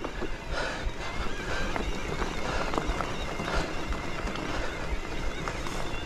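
Cube Stereo Hybrid 140 electric mountain bike rolling fast over a gravel and dirt trail: steady tyre crunch with frequent small clacks and rattles from the bike over the bumps, and wind buffeting the microphone.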